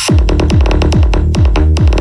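Loud electronic dance music played through a JBL Boombox 2 portable Bluetooth speaker at maximum volume: a fast, even beat of kick-drum hits that each drop in pitch, with synthesizer sounds over them.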